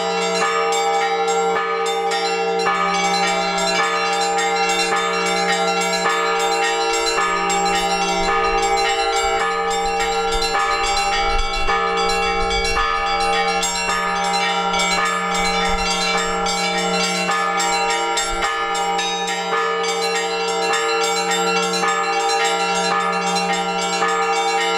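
Orthodox church bells ringing to call the faithful to the Divine Liturgy. Several bells are struck in a quick, dense rhythm over the steady hum of the larger bells.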